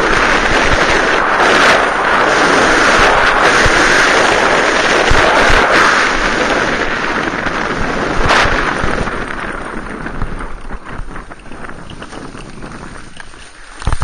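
Snowboard sliding and scraping over chopped-up, tracked snow, with wind buffeting the microphone: a loud, steady rush that fades over the last few seconds as the board slows to a stop.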